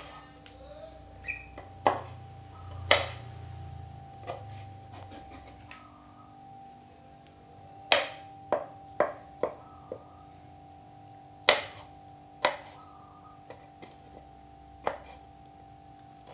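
Knife slicing long beans on a wooden cutting board: irregular sharp knocks of the blade on the board, coming in a quick run of several strikes about halfway through.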